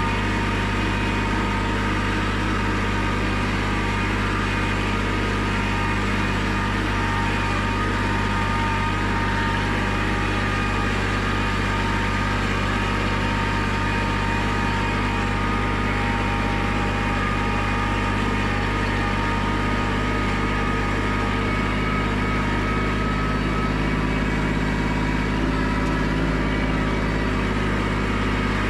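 Compact loader tractor's engine running steadily at an even throttle while the tractor drives along.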